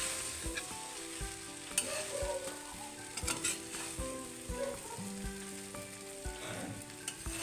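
Leftover rice frying in a metal kadai, sizzling steadily while a metal spatula stirs it, scraping and knocking against the pan every second or so.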